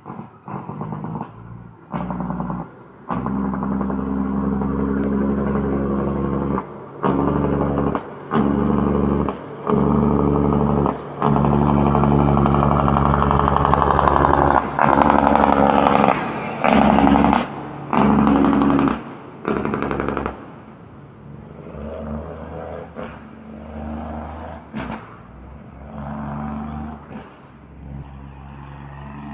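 Heavy diesel log truck, loaded with logs, coming downhill: its engine note cuts in and out in blocks of about a second, loudest as the truck passes close, then weakening as it moves away.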